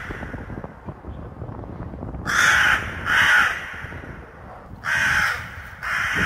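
A crow cawing: two pairs of harsh caws, the first pair about two seconds in and the second near the end.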